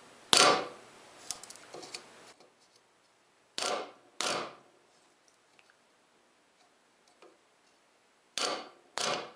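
A 1/4-inch mortising chisel being struck and driven into wood to chop a mortise: five sharp knocks. One loud knock just after the start, then two pairs of quieter knocks a few seconds apart.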